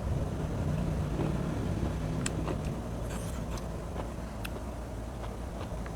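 Close-up chewing of crunchy food: a few sharp crunches and clicks over a steady low rumble.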